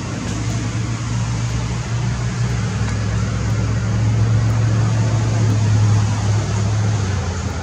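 Steady low motor hum with a rushing hiss over it, swelling through the middle and easing near the end.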